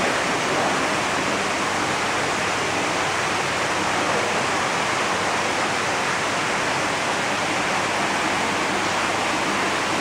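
Steady rushing of churning water in koi holding tanks, the surface stirred by bubbling aeration.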